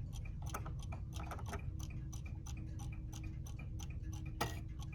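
Seth Thomas Exeter mantel clock's rebadged Hermle movement ticking at a quick, even pace, with one louder knock about four and a half seconds in.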